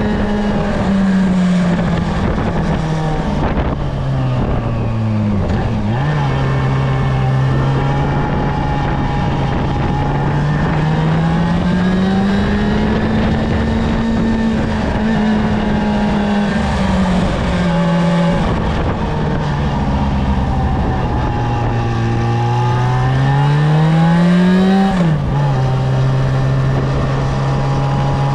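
Yamaha Fazer 6's 600 cc inline-four engine running on its stock exhaust while riding, the engine note rising and falling with the throttle. The pitch changes abruptly at gear changes several times, most clearly near the end, where it climbs and then drops sharply on an upshift.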